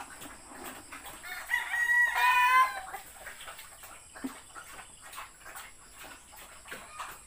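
A rooster crows once, a call of about a second and a half, over scattered clucking of chickens.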